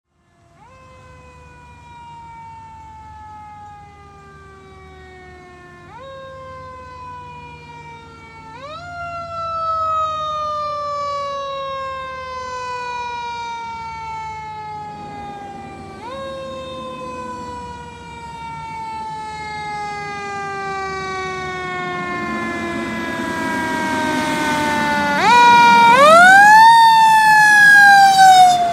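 Fire engine's Federal Signal Q mechanical siren, wound up in quick rises about six times and left to coast down in long, slowly falling wails. It grows steadily louder as the truck approaches and is loudest as it passes near the end.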